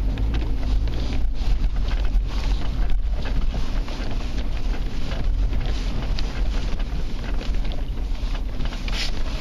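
A vehicle driving slowly over packed snow on river ice: a steady low rumble of engine and tyres, with wind noise on the microphone.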